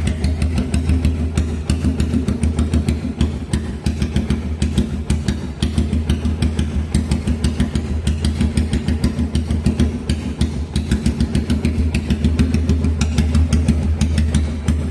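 Kawasaki KZ200 (Binter Merzy) single-cylinder four-stroke engine at stock 66 mm bore, idling steadily through a free-flow exhaust, with an even, rapid pulse of firing strokes.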